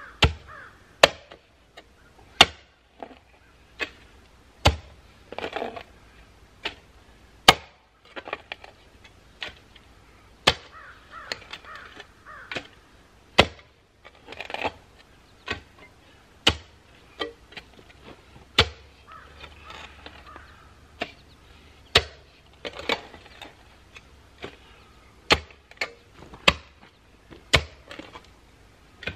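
Hand-held T-post driver striking a steel fence T-post again and again, sharp metallic clanks about once a second, driving the post into the ground.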